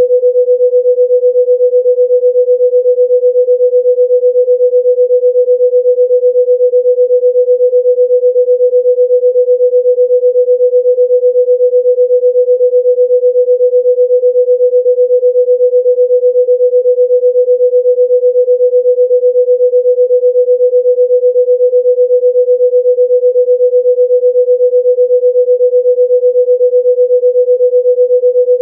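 A pure sine tone at about 500 Hz, held at one unwavering pitch and level throughout, played as a sound-healing frequency.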